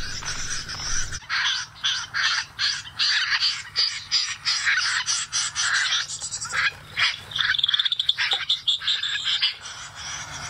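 Recorded bird-call lure played through loudspeakers wrapped in plastic bags on a mist-net pole: a dense stream of rapid, croaking chatter, with a fast rattling run near the end.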